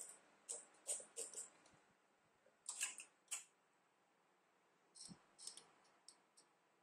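Scattered sharp clicks from the carriage of a Silver Reed SK830 knitting machine as its stitch dial and settings are worked by hand, coming in small clusters with quiet gaps between.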